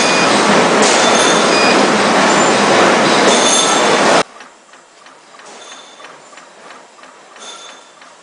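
A loud, even rushing noise that cuts off abruptly about four seconds in. After it comes the ultrasonic label cutting machine's quiet ticking as it feeds and cuts label tape, with a louder click about every two seconds.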